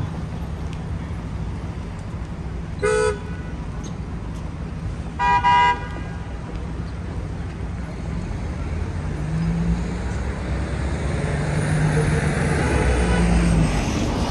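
Two vehicle horn honks in street traffic, a brief one about three seconds in and a longer, louder one about two seconds later, over a steady traffic rumble that swells near the end.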